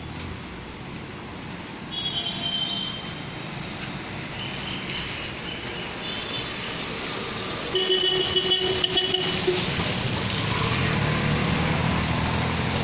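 Street traffic noise with vehicle horns sounding, briefly about two seconds in and for a second or two around eight seconds in.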